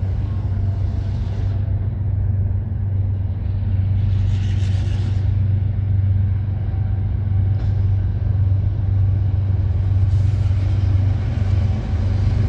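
Diesel locomotives of a CN freight train approaching, a steady low engine rumble that grows slightly louder, with brief bursts of hiss.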